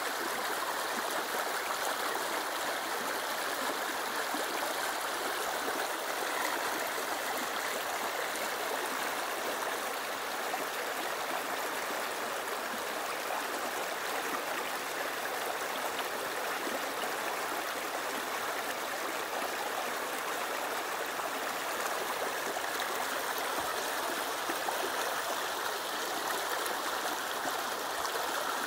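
Shallow river flowing over stones in a rocky riffle: a steady, even rush and babble of water.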